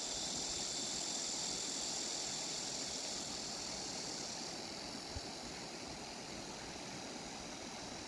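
A chorus of cicadas buzzing as a steady high shrill that eases a little partway through, over the low, even rush of river water.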